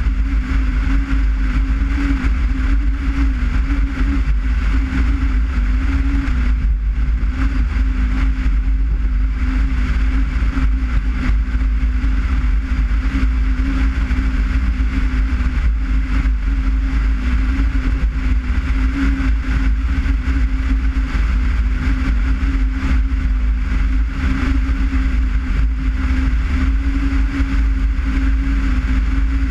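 Steady engine and road noise of a car driving at an even pace, with a constant deep rumble and a steady hum.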